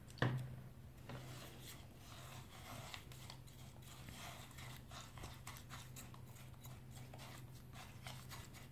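Plastic spoon stirring homemade slime in a glass bowl, with faint repeated clicks and scrapes against the glass as glue and iron powder take up borax water; a single light knock just after the start.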